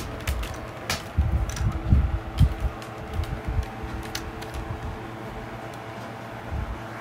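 Electric box fan running with a steady hum and uneven low rumbling from its airflow. Sharp, irregular clicks sound through the first three seconds or so.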